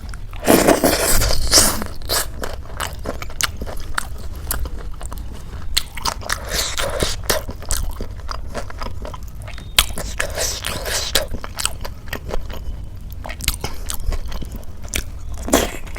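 Chewing and crunching of a crisp khasta samosa with ghugni, a run of small wet mouth clicks with three louder crunchy spells: about a second in, around six seconds and around ten seconds.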